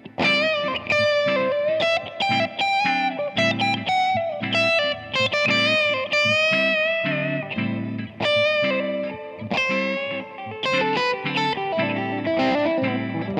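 1968 Gibson ES-345 semi-hollow electric guitar played through a 1966 Fender Vibrolux amp: a single-note lead with string bends and vibrato over a looped, rhythmically strummed chord part.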